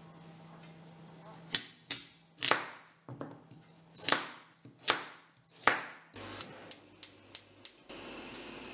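A kitchen knife chopping through raw pumpkin onto a plastic cutting board: a series of sharp chops, several with a short drag as the blade goes through the hard flesh, then a quicker run of lighter chops about three a second. Near the end the chopping stops and a steady hiss comes in.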